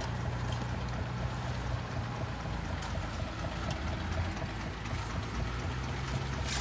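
An engine running steadily with a low hum under a rushing noise, with a few faint clicks.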